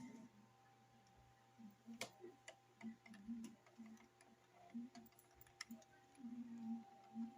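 Near silence: faint, irregular clicks and ticks over a faint steady hum.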